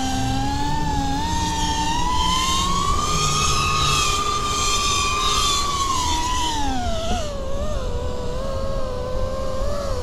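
Motor and propeller whine of a 5-inch FPV quadcopter with iFlight Xing2 2207 1855kv brushless motors in flight, heard from its onboard camera. The pitch climbs slowly over the first few seconds, drops about six to seven seconds in as the throttle comes off, then holds lower.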